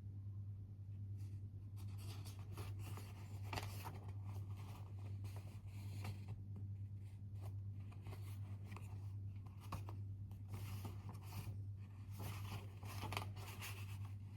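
Typing on a computer keyboard: quick, irregular key clicks that start about a second in and carry on in bursts, over a steady low hum.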